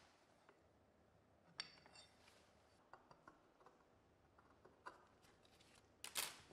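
Faint metallic clicks and taps of marking-out tools, a height gauge scriber and a scriber in a circle template, against steel, one of them ringing briefly. A short scratchy sound comes near the end.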